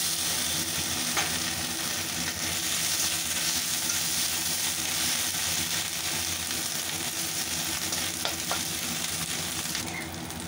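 Chopped ginger sizzling in hot mustard oil in a metal kadai, with bay leaves, dried chillies and cumin, stirred with a flat metal spatula. A steady frying hiss with a few light spatula taps against the pan.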